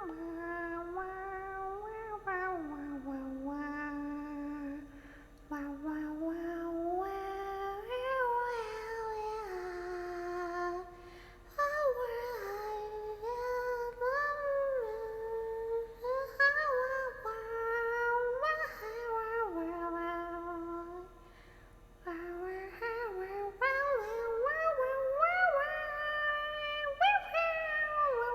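A young woman's voice humming and crooning wordlessly in long sliding tones, with a few short breaks: the tipsy, meow-like vocalizing of a woman while drinking.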